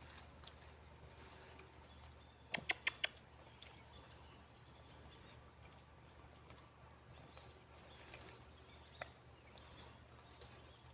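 A quick run of four sharp clicks about two and a half seconds in and a single click near nine seconds, over a faint, steady low hum.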